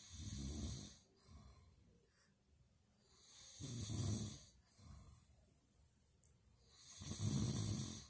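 An adult man snoring: three snores about three and a half seconds apart, each lasting about a second, a low rattling rumble with a breathy hiss on top.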